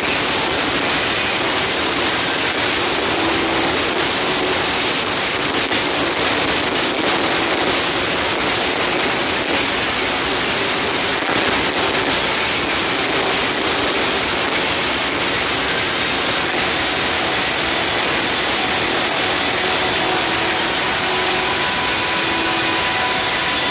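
Loud club music, distorted into a steady hissing wash in which only a few faint held notes show through.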